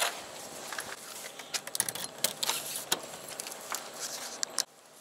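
Keys jangling and clicking in a door lock as the door is unlocked and opened: a run of short sharp clicks and rattles, thickest in the middle, stopping suddenly near the end.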